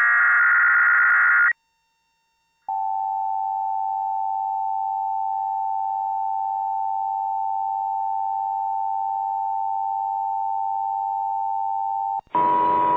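Emergency Alert System tones: the last SAME header data burst, a harsh digital screech of about a second and a half, then after a short gap the steady two-tone EAS attention signal for about nine and a half seconds. It cuts off shortly before the end, where a voice begins.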